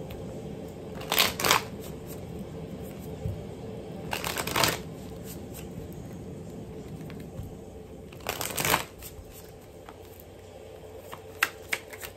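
A deck of tarot cards being shuffled by hand: three short riffles about three seconds apart, then a few light snaps of cards near the end.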